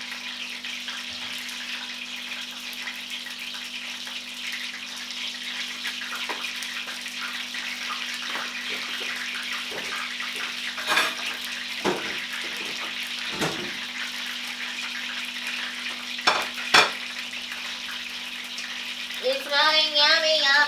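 Samosas sizzling in hot oil in a frying pan, a steady hiss throughout. A spatula clicks and scrapes against the pan a few times in the second half, with two sharp knocks about three-quarters of the way through.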